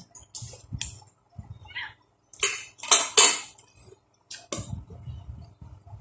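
Dishes and utensils clinking and scraping close to the microphone during a meal, in short scattered bursts, loudest about three seconds in.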